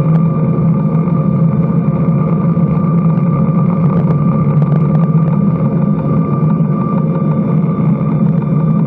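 Steady engine and air noise of a Boeing 737 MAX 8 jet airliner heard from inside the cabin: a constant loud drone with a low hum and a thin higher whine, unchanging throughout.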